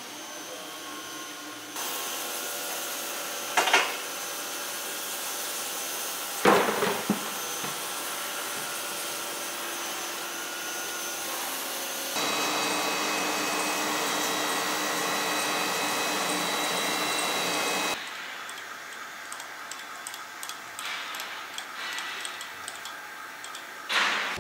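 Foam production line machinery running with a steady hum and whine of several tones. Two sharp clanks come about four and six and a half seconds in, and the machine noise changes abruptly a few times.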